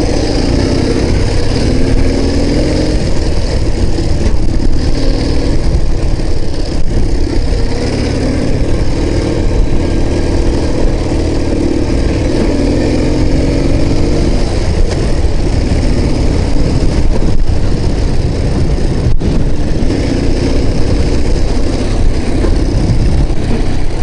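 Ural Tourist sidecar motorcycle's air-cooled flat-twin engine running steadily under way, its pitch rising and falling a little with the throttle, heard from the rider's seat with wind buffeting the microphone.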